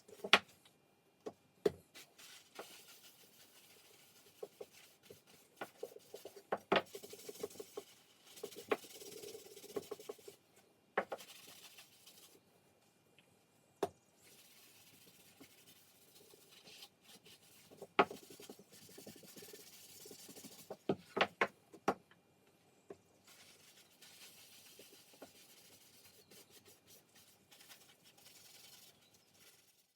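Hand-handling in a woodworking shop: stretches of rubbing and scraping, broken by sharp knocks and clicks, with a quick cluster of knocks about three quarters of the way through.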